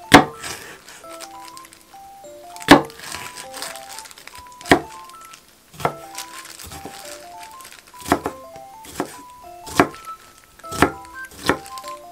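Chef's knife cutting a yellow bell pepper on a wooden cutting board: about a dozen sharp knocks of the blade on the board, sparse at first and closer together in the last few seconds as the strips are diced. Background music with a simple melody of single notes plays under it.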